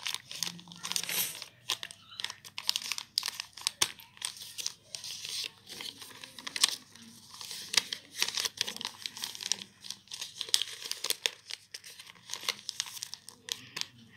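A square of coloured paper being folded and creased by hand into an origami salt cellar: irregular rustling and crinkling, with many short sharp crackles as the folds are pressed flat.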